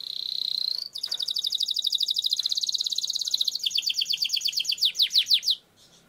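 Domestic canary singing a long rolling song. It opens with a rising whistle, then runs into a fast trill of rapidly repeated notes lasting about four and a half seconds, which slows into a few separate falling notes before stopping abruptly.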